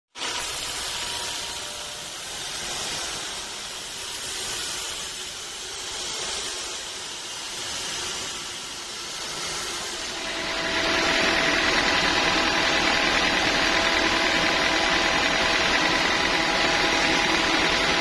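Band sawmill machinery running. For the first ten seconds it is a hissing running noise that swells and fades every second or two; about ten seconds in it turns into a louder, steady running sound with a constant whine.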